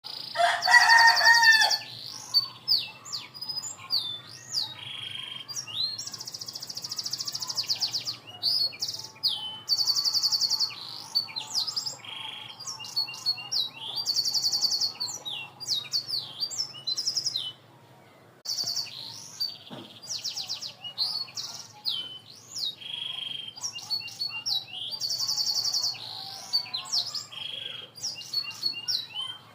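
Canary singing a long, varied song: fast, high trills alternating with quick whistled slurs, in phrases broken by short pauses. The song is said to carry isian, phrases the bird has learned from other birds.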